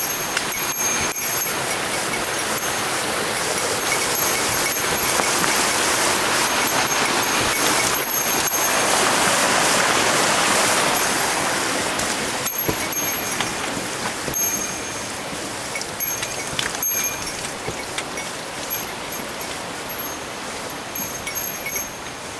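Stream water running, growing louder to a peak about halfway through as the rocky streambed is passed, then easing. A small bell jingles on and off throughout, with occasional knocks.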